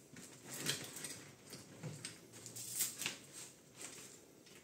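Rebreather hoses and fittings being handled as they are undone and capped: irregular light clicks and taps, with soft rustling between them.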